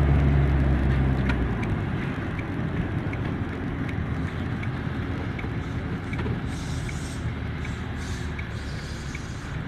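Car engine and road noise heard from inside the cabin while driving. The engine's low hum eases off after about a second and a half. From about two seconds in, the turn-signal indicator ticks faintly about twice a second, signalling the left turn.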